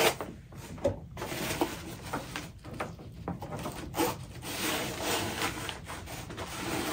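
Rustling and rubbing as the fabric-covered panels of an EcoFlow 110 W folding solar panel are unfolded and slid about, with light knocks about a second in and again around four seconds in.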